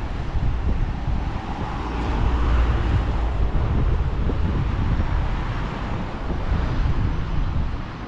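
Wind buffeting the microphone as a gusty low rumble, with a passing vehicle whose hiss swells about two to three seconds in and then fades.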